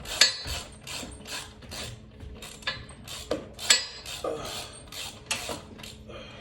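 Ratchet wrench worked in quick repeated strokes, about three a second, tightening a mounting fastener, with a couple of sharper loud clicks along the way.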